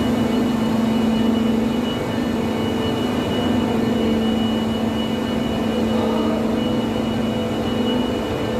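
Heavy construction machinery running steadily underground: a continuous loud drone with a low hum and a thin high whine.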